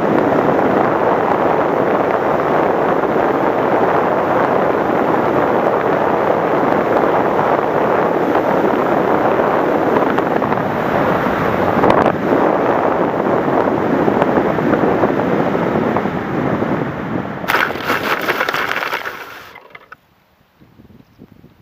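Steady rush of wind over the onboard camera's microphone of an RC model plane in flight. About 17 seconds in, a harsher scraping rush as the plane touches down and skids through grass, then it stops and all goes quiet.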